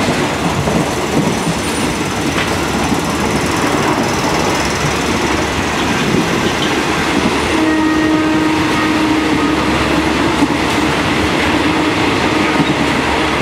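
Running noise of a Thai passenger train heard from inside the carriage: a loud, steady rumble and rattle. A steady tone joins for several seconds past the middle.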